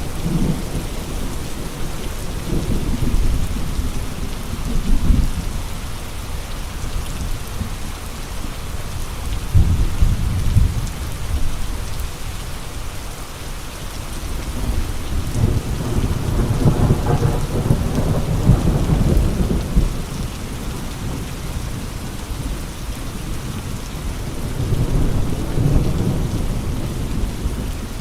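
Steady rain with gusty gale-force wind, the gusts rising and falling as low rumbling surges, four of them, the longest about halfway through.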